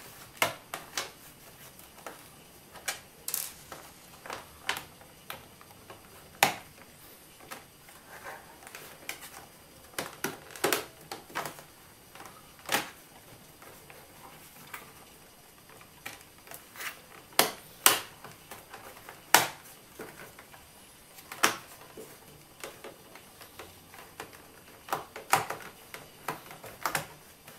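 Irregular plastic clicks and knocks as the bottom cover panel of an Acer Aspire 5680 laptop is pressed and snapped back into place by hand.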